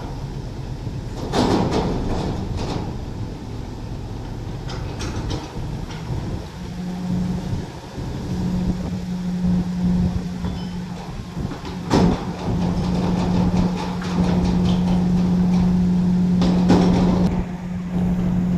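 Heavy diesel engines running, with sharp metal clanks: a loud one about a second in, another near the middle and one near the end, as crane lifting gear is handled on the steel container. A steady low hum joins about six seconds in and holds.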